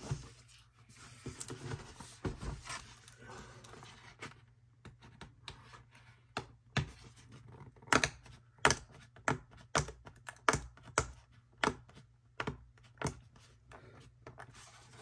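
Fingernails picking and scratching at a thin security tape seal on the end flap of a cardboard box: soft handling of the box at first, then from about four seconds in a run of irregular sharp clicks and scrapes, one or two a second.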